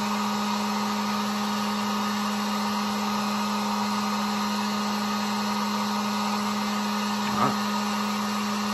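Harbor Freight 1500-watt heat gun running steadily, its fan blowing hot air with a steady hum.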